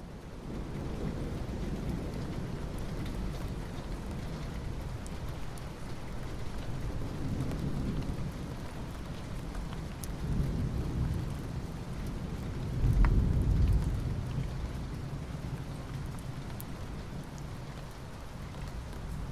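Steady soft rain falling on asphalt, an even hiss of drops. Low rumbles swell under it twice, a smaller one about halfway through and a louder one about two-thirds of the way in.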